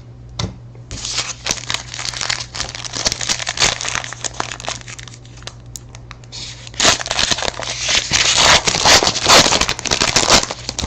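Crinkling of a foil trading-card pack wrapper being torn open and handled. It starts about a second in and gets louder near the end.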